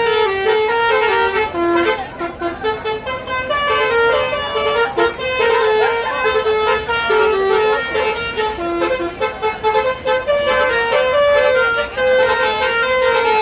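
Basuri musical bus horns on two buses playing a dangdut koplo melody together: a continuous run of short horn notes stepping up and down in pitch.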